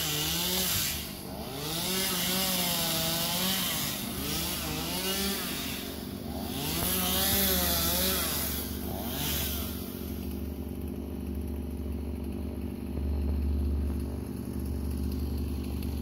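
Chainsaw running, its revs rising and falling again and again as it cuts through the pine during the first nine seconds or so, then settling to a steadier, quieter run for the rest.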